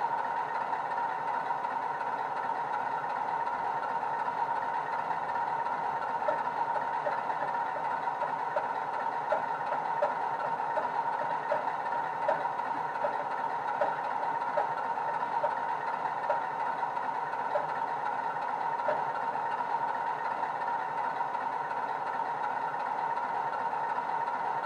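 Class 45 diesel engine idle from a Legomanbiffo sound file on a LokSound 5 DCC decoder, played through a small EM1 speaker in a Heljan OO gauge model locomotive: a steady idle, with a run of light ticks through the middle.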